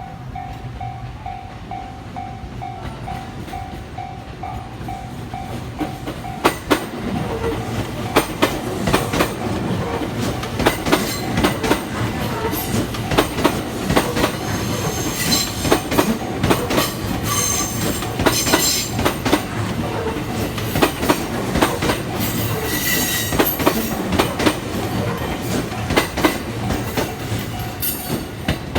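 Level crossing warning bell ringing in a steady pulse. From about six seconds in, a JR West 227 series electric train crosses: its wheels clack rapidly over the rail joints and squeal high now and then, while the bell keeps ringing underneath.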